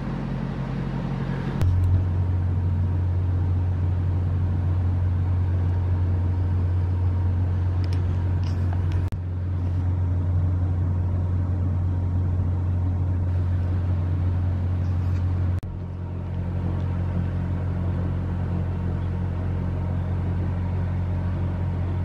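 A steady low rumble with no speech. It dips briefly and shifts a little about two, nine and sixteen seconds in.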